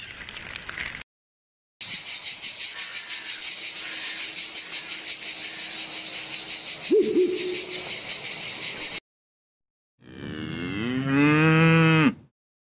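A high, rapidly pulsing buzz runs for about seven seconds. Near the end comes a single loud moo from a cow, rising and then falling in pitch.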